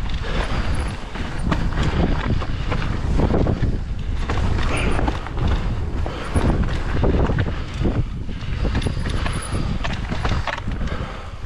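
Mountain bike running down a rough dirt trail: tyres rumbling over the ground, with frequent knocks and rattles from the bike and wind buffeting the microphone.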